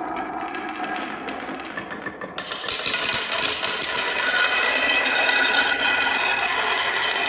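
Toys rolling down a marble-run slope track, with a dense, rapid rattle that starts abruptly a little over two seconds in and keeps going.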